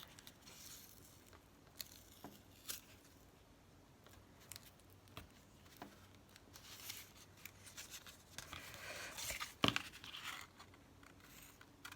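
Faint paper-crafting handling: double-sided tape and paper being pulled, torn and pressed down, heard as soft rustles and scattered small clicks and taps. The rustling gets busier near the end, with one sharper click.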